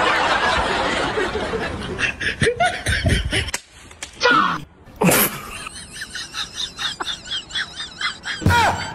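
Laughter in short, rapidly repeated bursts, with a few quick falling pitch sweeps. A loud rushing noise in the first two seconds gives way to it.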